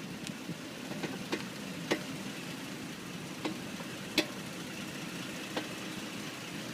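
Infiniti G37x brakes creaking, heard as about six short, sharp clicks at irregular intervals, the loudest about four seconds in, over a steady low hum from the car.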